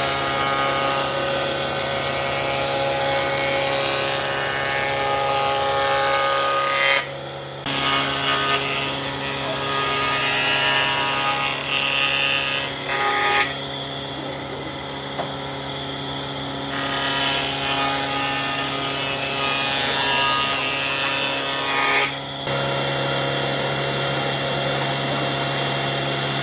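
Electric woodworking power tools running on wood: a steady machine whine with several pitched tones over a noisy hiss. The sound changes abruptly four times, as one tool run gives way to another.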